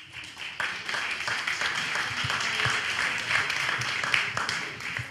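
Audience applauding: many hands clapping together, starting about half a second in and easing off near the end.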